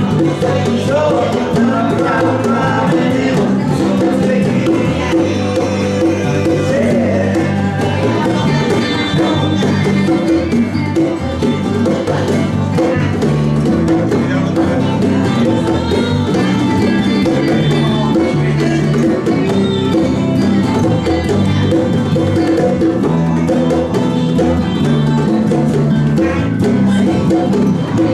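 Small band playing a song live, instruments playing together at a steady volume without a break.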